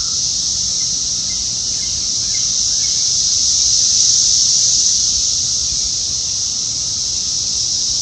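A chorus of Brood X 17-year periodical cicadas: a dense, steady, high-pitched drone of many males singing at once, swelling slightly toward the middle.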